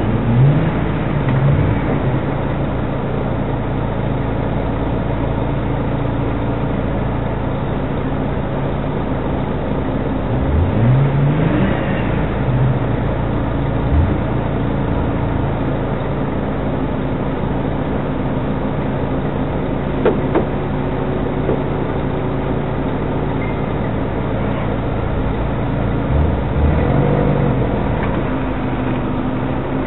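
Off-road 4x4 engines at a crawl: a steady idle close by, with short revs rising in pitch about a second in, around eleven seconds in and near the end. A couple of brief knocks come in the middle.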